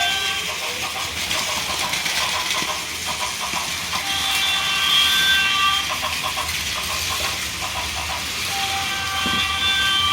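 Plarail toy trains running on plastic track with a steady rhythmic clatter. Two electronic horn toots from the sound-effect trains sound over it, one about four seconds in and one near the end.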